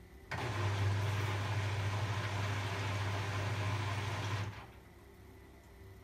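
Arçelik 8120 PMG washing machine in its rinse cycle: a burst of rushing water over a steady low electrical hum, switching on abruptly and cutting off about four seconds later, as the machine briefly takes in or moves water.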